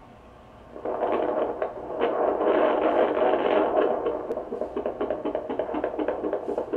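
Handheld fetal Doppler on a pregnant golden retriever's belly: a whooshing hiss through its speaker that starts about a second in, turning into a puppy's fast heartbeat, a quick even pulsing of about four to five beats a second.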